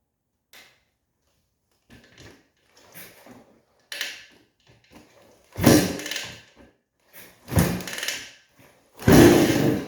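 Kick-starting a 1984 Honda ATC250R's air-cooled two-stroke single: three hard kicks, each a sudden heavy thunk with a brief churn of the engine turning over. The engine does not catch. Lighter knocks come before the kicks.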